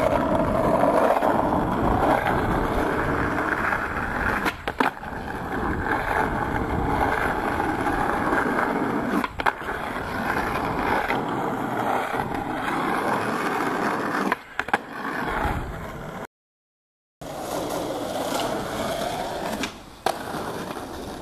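Skateboard wheels rolling over rough asphalt with a steady grinding rumble, broken every few seconds by a sharp clack of the board striking the ground. The sound cuts out briefly about two-thirds of the way through.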